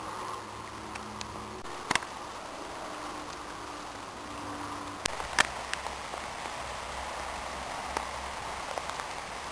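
Steady rain falling, a continuous even hiss with a few sharp ticks of heavier drops, two of them plainly louder, at about two seconds and five seconds in.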